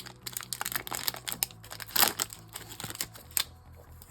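Foil trading-card pack wrapper crinkling as it is handled and torn open, with many quick, irregular crackles.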